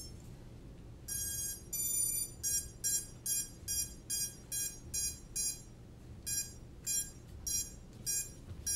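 FPV racing quadcopter giving electronic power-up beeps as its battery is connected: two longer beeps, then short, evenly spaced beeps at about two a second in two runs with a short pause between.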